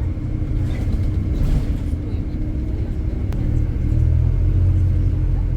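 Steady low engine rumble of road traffic and construction machinery, growing louder about four seconds in, with one sharp click about three seconds in.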